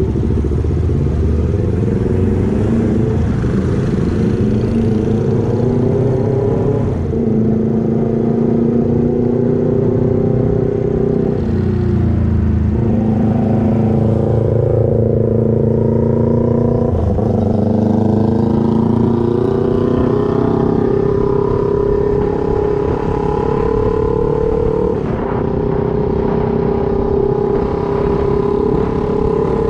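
Motorcycle engine running while riding. Its pitch climbs slowly and drops sharply several times, as with gear changes.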